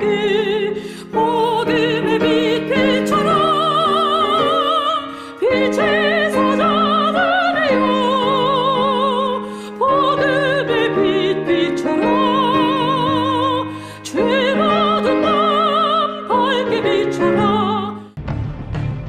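Music with a singing voice carrying a strong vibrato over sustained accompaniment, in phrases of a few seconds each. Near the end it breaks off and a different musical sound begins.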